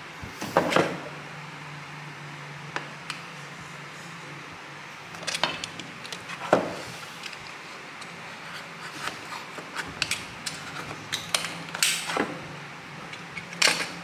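Utility knife cutting and prying a square opening out of a PVC box: scattered sharp clicks, snaps and knocks, a few of them loud, over a faint low hum.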